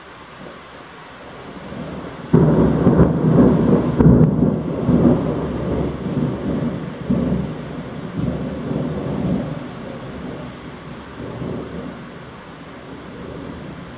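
A thunderclap breaks suddenly about two seconds in and rolls on in a long, low rumble with a second peak, fading slowly over the next ten seconds, over the steady hiss of heavy rain.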